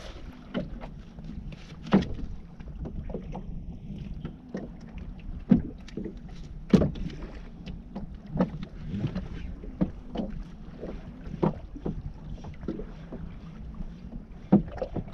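Water slapping irregularly against the hull of a small inflatable boat on choppy sea, with sharp knocks every second or so over a steady low rumble of wind.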